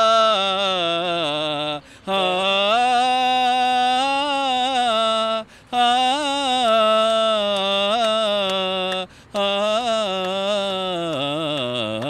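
Men singing a Malayalam film song, drawing out a wordless "aa" in four long held phrases with a slight waver in pitch and short breaks between them.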